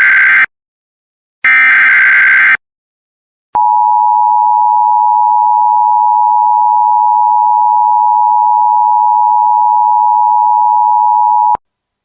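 Emergency Alert System SAME header data bursts: shrill, buzzing digital tones in about one-second blasts, the last two heard here. After a second of silence, the EAS two-tone attention signal sounds as a steady, piercing tone for about eight seconds and cuts off abruptly. This announces a fire warning to follow.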